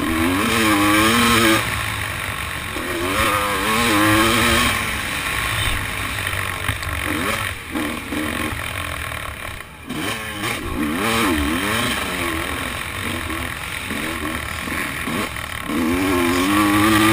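Motocross dirt bike engine racing hard, its note repeatedly rising and falling as the throttle is opened and rolled off, heard from a helmet camera with wind rushing over the microphone. The engine note drops away briefly about ten seconds in.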